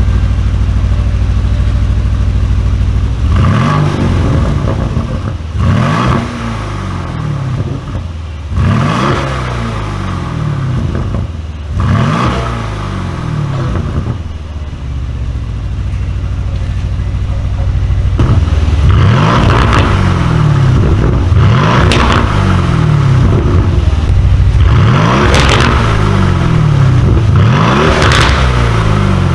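Aston Martin Vantage V8 with an FI aftermarket exhaust idling, then revved repeatedly while stationary. Each rev rises sharply and falls back to idle. The first few revs come about three seconds in; from about two-thirds of the way through the revs are louder and come every few seconds.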